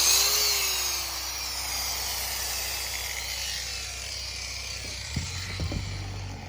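Corded power tool winding down after being switched off: a whine that slowly falls in pitch and fades over several seconds, with a couple of light knocks near the end.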